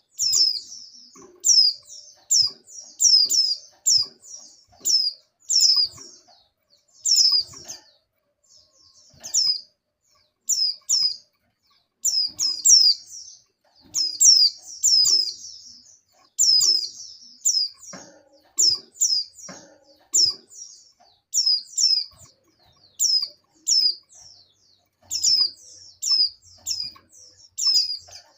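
White-eye (pleci) giving short, high chirps that sweep sharply downward, singly and in quick runs of two to four, repeating every second or so. The chirping is the call of a female in breeding condition calling for a male.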